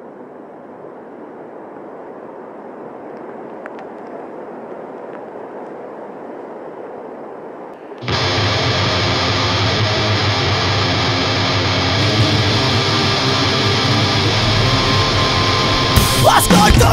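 Steady rushing rumble of big typhoon-swell surf, slowly growing louder, then loud music with guitar cuts in abruptly about eight seconds in.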